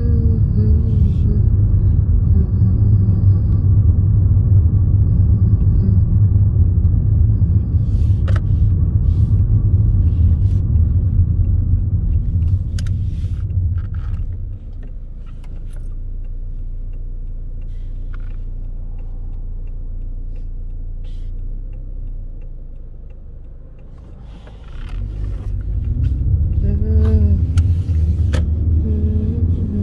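Engine and road noise inside a moving car's cabin: a steady low rumble that eases off for about ten seconds midway as the car slows, then swells again about 25 seconds in as it pulls away, the engine's pitch climbing.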